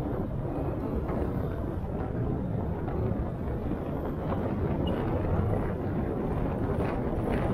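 Kia K3 (Cerato) car driving along a city street: a steady low rumble of road noise.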